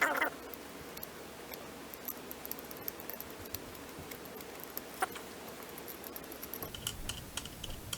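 Faint scattered clicks and taps of a screwdriver and metal parts while the rear action screw under a rifle's hand guard is felt for and started. Near the end they turn into a run of quick, even ticks.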